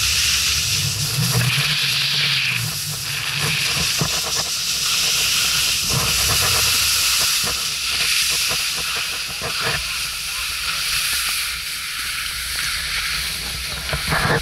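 Skis hissing and scraping over packed snow, a steady noise that swells and eases over the run, with wind rumbling on the microphone and a few sharp clicks along the way.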